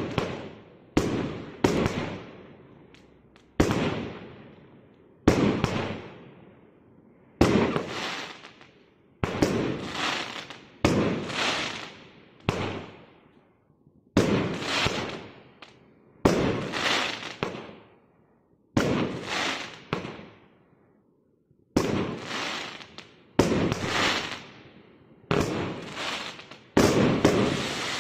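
Brightsky 'Diamonds Forever' 21-shot barrage firework cake firing shot after shot, about one every one to two seconds. Each shot is a sudden bang that fades away over a second or so.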